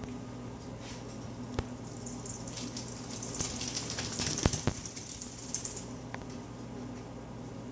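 Steady low hum of air blowing from a heating vent. For a few seconds in the middle there is a rustling hiss with sharp light clicks, loudest about four and a half seconds in.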